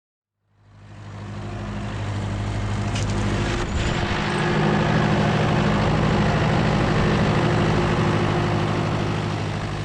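Diesel engine running steadily after fading in, with a low, even drone. Its note shifts slightly about four seconds in, around a couple of faint clicks.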